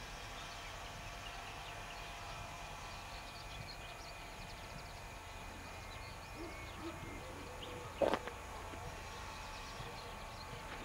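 SU46 diesel locomotive hauling passenger coaches slowly toward the listener, a quiet steady engine hum under faint higher tones. A single short knock about eight seconds in.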